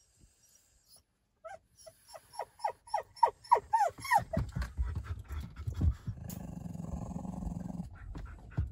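Small dog in a wire crate whining, a quick run of short cries that each fall in pitch, about three a second, followed by a low, steady rumble for a couple of seconds.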